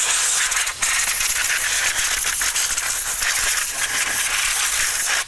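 Can of compressed-air duster spraying a steady hiss through the straw into dusty cooling fans to blow the dust out. It breaks off briefly about a second in and cuts off suddenly at the end.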